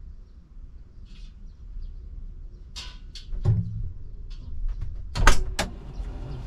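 Clicks and knocks of an excavator's cab door being handled from outside and opened, with the sharpest, loudest clacks about five seconds in. A low steady rumble runs underneath.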